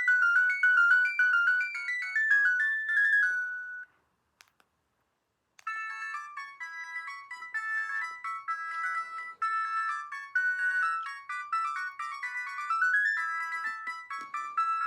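Vodafone 227 mobile phone playing its ringtones: one synthesized melody ends about four seconds in, and after a short gap with a faint click, another tune with several notes at once begins.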